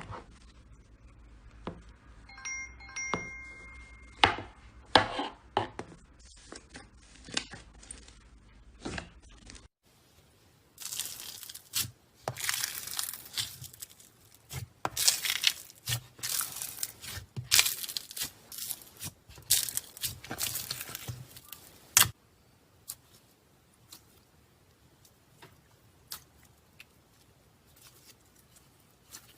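Slime being squeezed, stretched and poked by hand: sticky clicks, pops and bursts of crackling, with a brief chime-like tone about two seconds in. The sound changes to a different clip about ten seconds in, where the crackling comes in dense bursts before thinning out to scattered clicks.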